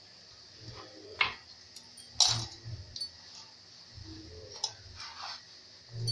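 A hand mixing flour and spinach purée into poori dough in a steel bowl, with about four sharp clinks against the bowl. The loudest clink comes about two seconds in.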